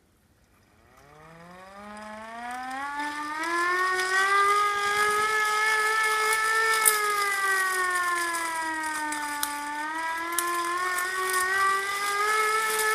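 Hand-cranked air raid siren being spun up by hand: a wail that rises in pitch and loudness over the first few seconds, holds, sags a little about nine seconds in and climbs again. A few sharp clicks sound on top.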